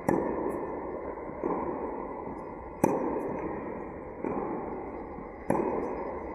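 Tennis racket strings striking a tennis ball on two-handed backhands, sharp pops that ring on in the reverberant indoor tennis hall. Three louder hits come about every three seconds, with a fainter knock between each pair.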